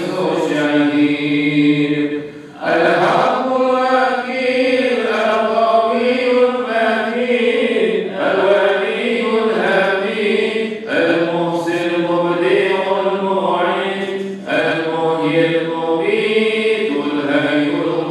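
A man's voice reciting the Quran in Arabic, in a slow, melodic chanted style, with long notes that slide between pitches. The recitation is broken by short pauses for breath.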